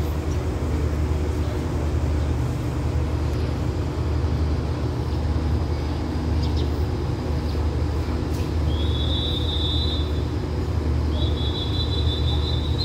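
A diesel locomotive idling with a steady low hum. In the second half a high thin tone sounds twice, each time for about a second and a half.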